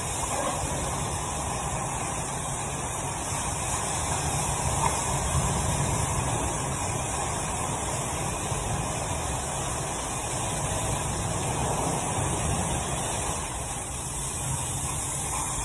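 Pressure washer spraying water onto a car's body: a steady rush of spray with a low hum underneath.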